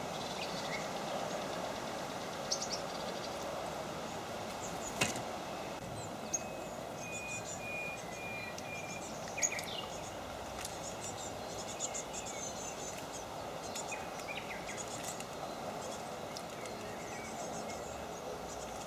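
Small songbirds chirping and calling in short high notes over a steady background hiss, with a couple of sharp clicks.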